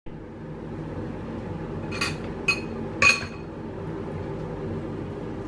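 Three light clinks of kitchenware, about half a second apart, each with a short bright ring, the third the loudest, over a steady low hum.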